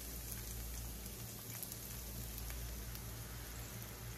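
Chopped onion, garlic and bell peppers sizzling and crackling in a hot cast iron skillet as heavy cream is poured over them from a carton.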